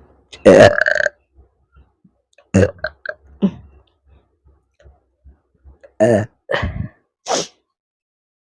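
A woman burping from the gas of carbonated soft drinks (Coke and Sprite): one loud, long burp with a falling pitch about half a second in, then several shorter, quieter burps.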